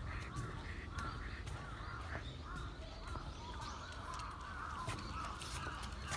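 Birds calling, with scattered light clicks of footsteps on a wooden boardwalk.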